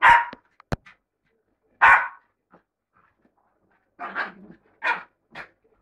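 Bichon Frise barking in play: single barks at the start and about two seconds in, then three quick barks near the end, with a short sharp click just under a second in.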